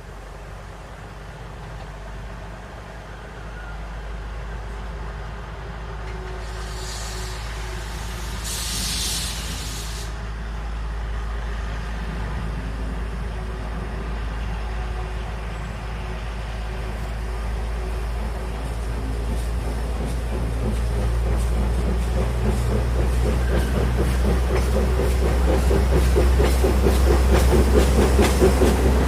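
Locomotive-hauled train approaching and growing steadily louder, with a low engine drone. Two short hisses come about seven and nine seconds in, and a rapid rhythmic clatter of wheels builds toward the end.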